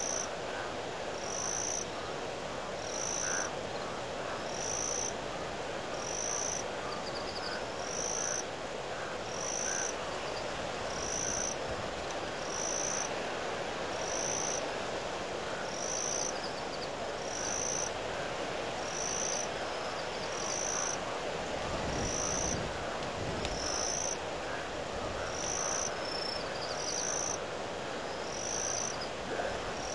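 Wind blowing in a steady rush, with a low gust buffeting the microphone about two-thirds of the way through. Over it, a short high-pitched chirp repeats regularly, about once every second and a half.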